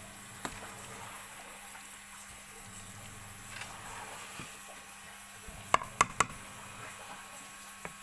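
A metal spoon stirring and folding chili-paste-coated napa cabbage in a plastic basin, a soft wet squishing of the leaves. A little before six seconds in, the spoon knocks three times in quick succession against the basin, the loudest sounds here.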